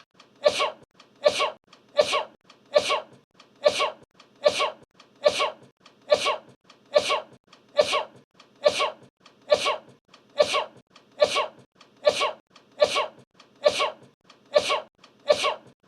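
A short sneeze repeated over and over at an even pace, a little more than once a second, each sneeze alike.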